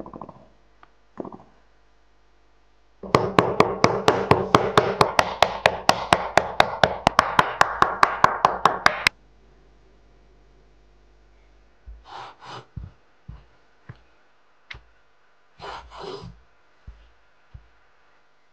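A starch-coated pork slice being pounded thin on a wooden cutting board: a fast, even run of loud thuds, about five a second, lasting some six seconds, followed by a few soft scattered taps and rustles.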